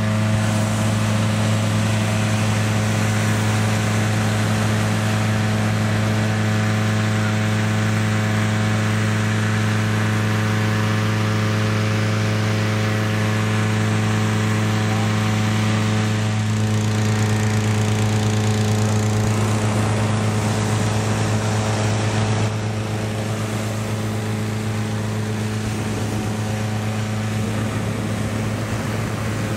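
Petrol-engine balloon inflator fan running steadily, blowing air into a hot-air balloon envelope. It holds one even engine hum throughout, and the hum drops slightly in level about three-quarters of the way through.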